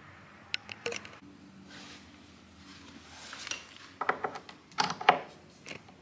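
A quarter-inch guitar cable being handled and plugged into the input jack of a Marshall MG15 combo amp. There are a couple of light clicks under a second in, then a cluster of sharp metallic clicks and knocks from about four seconds in, the loudest just after five seconds.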